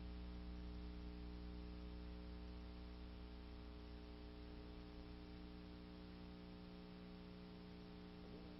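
Faint, steady electrical hum with many evenly spaced overtones, under a light hiss.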